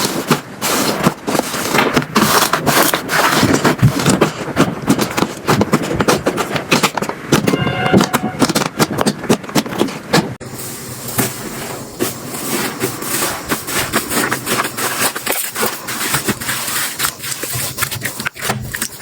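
Slime being squeezed and stretched by hand, giving dense, irregular sticky clicking and crackling. About ten seconds in, the sound changes abruptly to a thinner, sharper crackle, as a different slime is worked.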